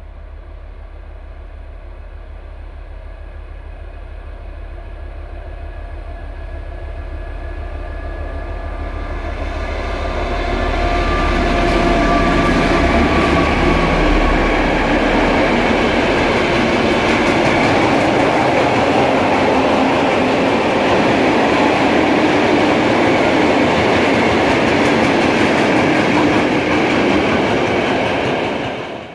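Diesel-hauled freight train approaching and passing close by: the locomotive's engine drone grows steadily louder over the first ten seconds, then a long string of freight wagons runs past with loud, steady wheel-and-rail noise. The sound cuts off suddenly near the end.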